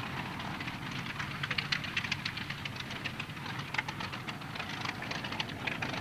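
The Bristol Freighter's two Bristol Hercules sleeve-valve radial engines running at low taxiing power: a steady low drone with many irregular crackles over it.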